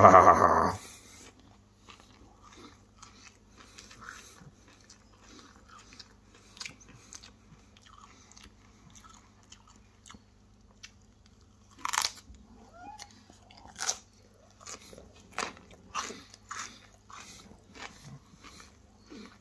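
Crunching and chewing on a raw broccoli head: bites and chews come at uneven intervals and are mostly faint, with louder crunching bites about twelve seconds in and again between about fourteen and seventeen seconds. It opens with a short, loud vocal sound from the eater.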